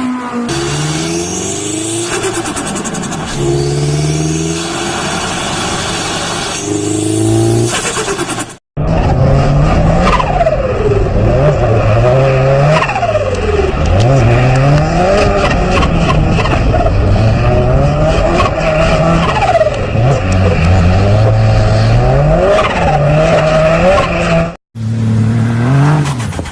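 Turbocharged car engines being driven hard in two clips. In the first, the engine revs up through several gear changes. After a cut about nine seconds in, a second car's engine revs up and down over and over while its tyres squeal.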